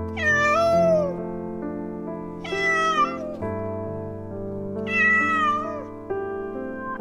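A cat meowing from inside a wire live-catch trap: three long meows about two seconds apart, each falling away at the end, over background music of steady held notes.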